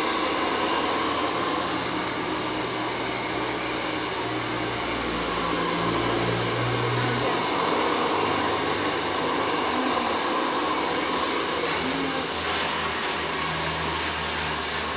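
Hair dryer blowing steadily, a continuous even rushing of air with a faint low motor hum.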